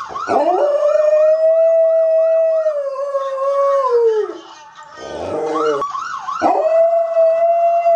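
A dog howling along with a police siren's rapid up-and-down yelp: two long, steady howls, the first sliding down in pitch and dying away about four seconds in, the second starting about two seconds later.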